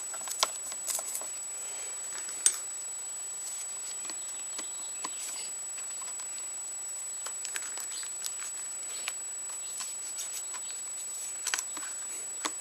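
Scattered light clicks and taps of parts and tools being handled while a clamp is worked along a motorcycle handlebar, the sharpest click about two and a half seconds in, over a steady faint hiss with a thin high whine.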